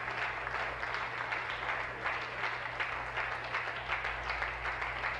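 A roomful of legislators applauding steadily, many hands clapping at once.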